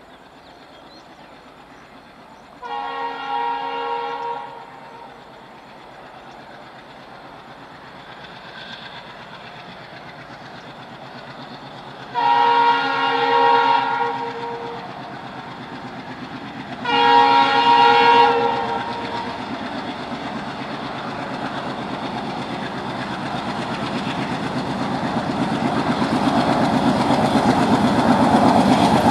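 Twin WDM-3D ALCO diesel locomotives hauling a freight train sound their multi-tone horn three times, each blast about two seconds long. Between the blasts the diesel engines and the wagons' wheels on the rails grow steadily louder as the train approaches.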